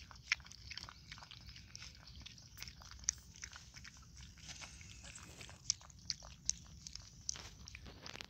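Puppies eating wet mash from a stone trough: rapid, irregular lapping, smacking and chewing sounds, several a second, with a few sharper clicks.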